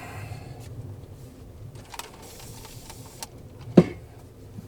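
A few light clicks and knocks, the loudest a little under a second before the end, over a faint low hum.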